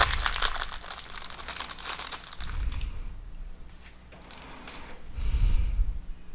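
Packaging of a replacement charging port crinkling as it is handled and opened, dense crackling for about two and a half seconds, then quieter handling with a few dull bumps.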